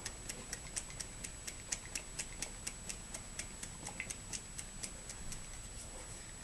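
Pebeo Fantasy Moon paint being mixed in its jar: a steady run of light clicks, about four a second.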